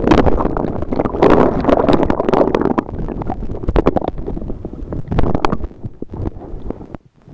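Muffled rushing, splashing and knocking as a camcorder in a shock case is thrown into a lake and lands in the water, the noise picked up through the case. The noise is loud throughout and drops away abruptly near the end.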